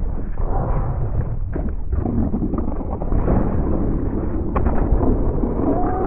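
A cartoon burp heavily distorted by effects processing. It is a deep, continuous, layered belch-like sound with a few short clicks about halfway through.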